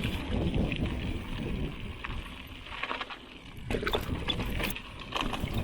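Mountain bike rolling fast over a dirt trail: tyre rumble and wind on the microphone, with sharp rattles and clacks from the bike over bumps.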